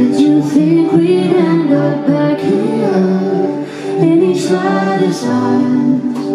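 Live band music: a woman singing lead with a man's voice singing alongside, over sustained keyboard chords.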